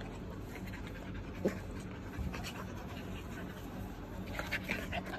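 Husky puppies play-fighting, with scuffling and light clicking throughout. A short sharp sound comes about a second and a half in, and a few short squeaky sounds come near the end.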